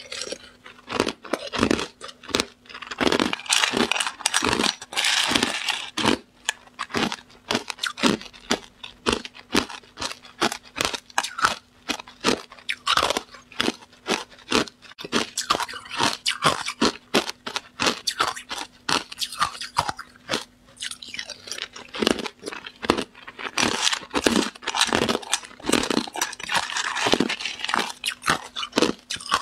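Hard ice cubes crunched and chewed, close-miked: a dense, irregular run of sharp cracks and crunches with short pauses between mouthfuls.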